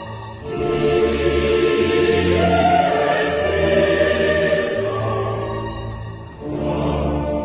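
Dramatic choral music: sustained choir voices over a deep low accompaniment, with brief lulls about half a second in and again around six seconds.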